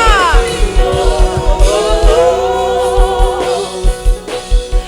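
Gospel worship music: voices holding long notes in harmony over a drum beat.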